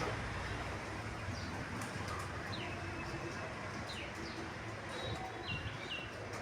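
Pigeons cooing softly while other birds call: several short, high whistled notes that drop in pitch, the last two coming close together near the end, over a steady low background rumble.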